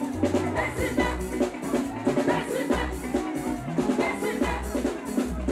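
Live band playing upbeat gospel music, with a steady drum-kit beat, bass and a lead singer's voice over it.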